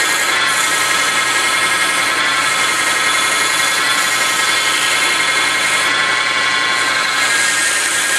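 Small wood lathe running with a steady whine, and a hiss from sandpaper held against the spinning wooden spindle. The hiss eases briefly a few times as the pressure changes.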